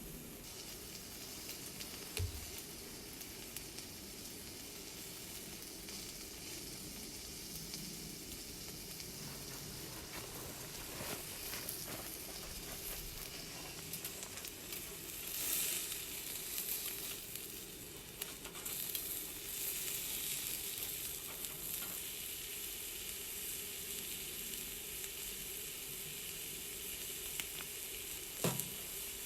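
A thick cut of meat sizzling steadily on a hot iron griddle plate, flaring louder for a moment about halfway through. A sharp knock sounds near the end.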